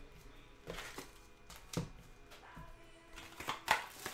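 Foil-wrapped trading-card packs crinkling and tapping as they are handled and stacked on a table, in several short rustles, the loudest a little past the middle. Faint background music runs underneath.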